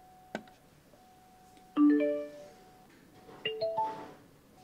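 A click as the power button on a DIY Bluetooth speaker is pressed. About two seconds in, the speaker plays a short chord-like start-up chime, and a second and a half later a rising three-note chime, the kind of prompt a Bluetooth amplifier board gives when it powers on and connects to a phone.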